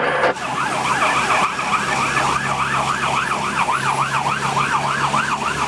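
Fire engine siren in its fast yelp, sweeping up and down about three times a second, heard from inside the cab over the steady drone of the engine.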